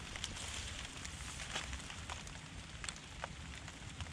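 Steady hiss of light rain with scattered small clicks and crackles, over a low rumble.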